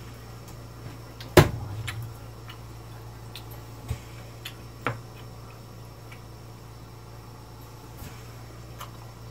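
A few sharp clicks and knocks of a knife and fork at a plate, the loudest about a second and a half in, with quiet chewing between, over a steady low hum.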